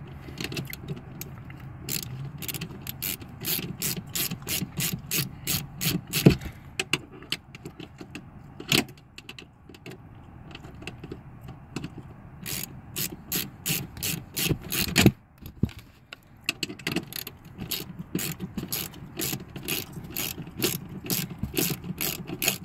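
Socket ratchet wrench clicking as it turns a driver's-seat mounting bolt back in, in runs of quick regular clicks broken by a few short pauses.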